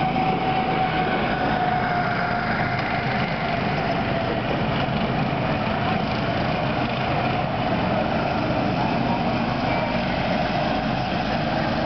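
Small go-kart engines running steadily on the track, a constant drone with a high engine whine that dips a little and climbs again toward the end.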